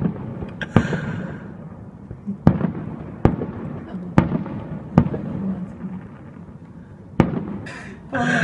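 Fireworks display: aerial shells bursting overhead, about seven sharp bangs at irregular intervals, with a low rumble between them.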